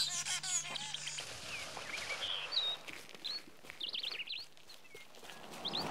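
Wild birds chirping and calling: many short, quick whistled notes that sweep up and down, some in rapid clusters.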